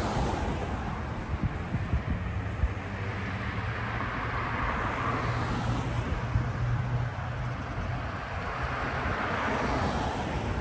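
Street traffic: cars driving past on a residential road, their tyre and engine noise swelling and fading several times, with a low engine hum in the middle.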